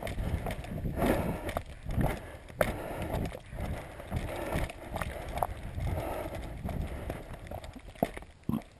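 Footsteps crunching and knocking on loose stones and gravel as someone climbs a rocky mountain path, an uneven step about once or twice a second.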